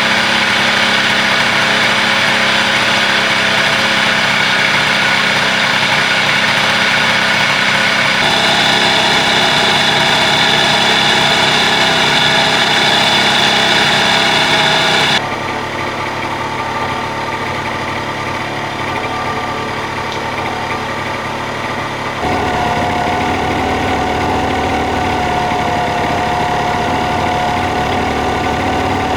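50cc two-stroke Honda Dio scooter engines idling, heard close to the crankcase, in takes that change abruptly about 8, 15 and 22 seconds in. Through the first half a loud high hiss rides over the engine, the 'shaa-shaa' noise of a failed crankshaft bearing; the later takes are without it.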